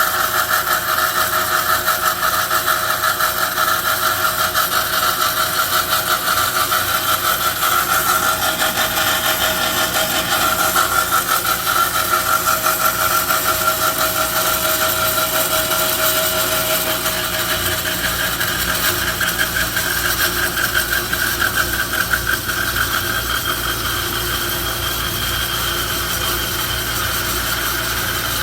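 MEP PH261-1HB band saw running and cutting through 75x75 mm square tube with 1.6 mm walls: a steady, continuous grinding whine of the blade teeth in the thin-walled tube, a little quieter in the last third, stopping abruptly at the end.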